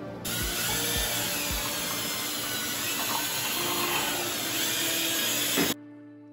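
Cordless drill spinning a paddle mixer through a bucket of two-part epoxy, a steady whir that starts just after the beginning and cuts off sharply near the end.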